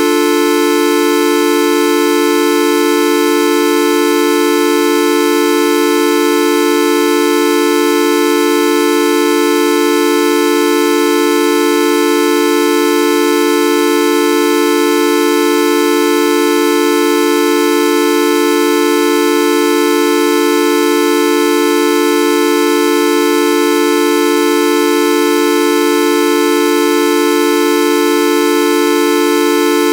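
The looped 'Videoup V1.2' sound effect: a loud, single held tone with many overtones, steady and unchanging in pitch and level, like a horn held down.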